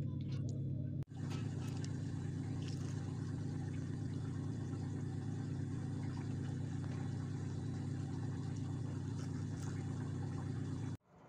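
A steady low hum with a hiss over it, broken by a brief gap about a second in and cutting off suddenly near the end.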